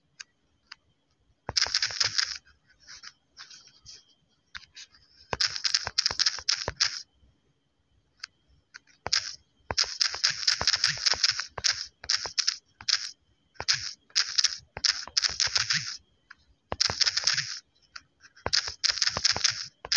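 Irregular bursts of scratchy, hissing noise with sharp clicks, in clusters of about half a second to two seconds, from fingers tapping out text on a smartphone's on-screen keyboard.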